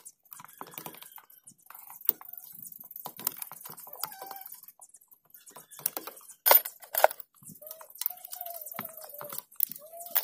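Hand tools clicking, tapping and scraping on the metal of a Suzuki Smash motorcycle engine during a tune-up, with two sharp metallic knocks a little past halfway.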